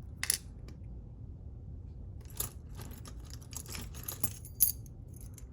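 Small metallic clicks and scrapes as the retaining clip is pried off the back of a Yale 500 Plus lock cylinder: several sharp separate ticks, one louder snap a little past halfway.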